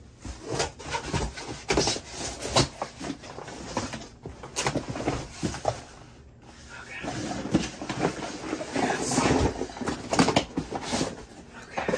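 Cardboard boxes and their contents being shifted and handled: irregular knocks, scrapes and rustling of cardboard.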